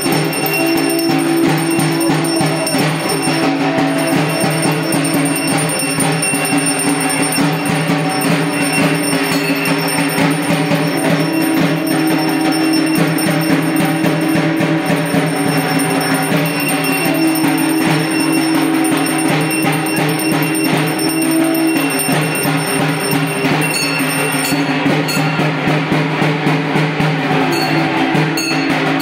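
Hindu temple aarti music: fast, dense drumming with bells ringing, over long held tones that break off and return every few seconds.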